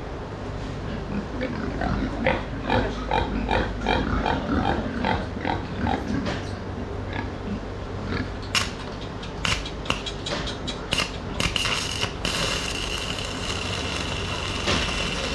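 Pigs grunting in a quick series of short calls, about two a second, for several seconds. These are followed by a few sharp clicks or knocks, and then a steady high-pitched whine sets in near the end.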